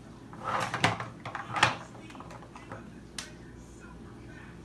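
A few single sharp clicks and knocks, spaced out, from a toddler handling a ball and a toy train.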